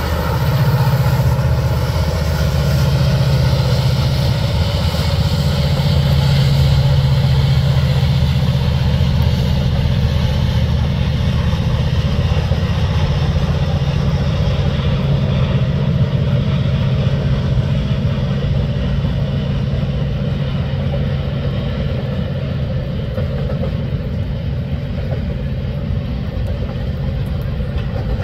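A CN SD75I diesel locomotive's engine runs at power as it pulls away, its drone fading over the first several seconds. It gives way to the steady rolling rumble of double-stack intermodal well cars passing on the rails.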